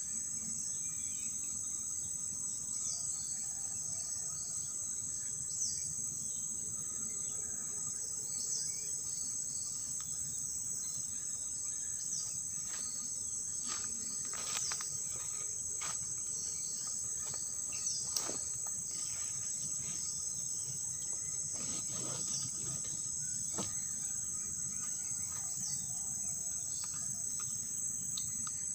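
Forest insect chorus, with crickets keeping up a steady high-pitched trill. A short falling chirp repeats about every three seconds, and several sharp clicks come in the second half.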